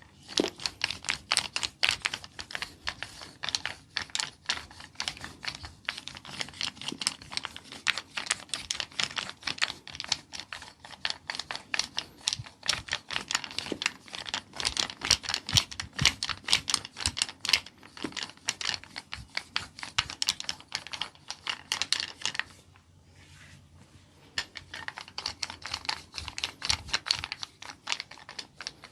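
Rapid, irregular crisp clicks and taps from a massage, many a second, like keyboard typing. They stop for about two seconds near the end, then start again.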